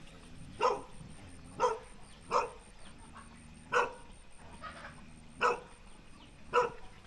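A dog barking, six single sharp barks spaced irregularly about a second apart.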